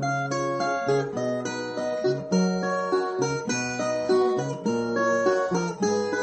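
Ten-string viola played solo: a picked melody over low bass notes, several plucked notes a second, with no voice.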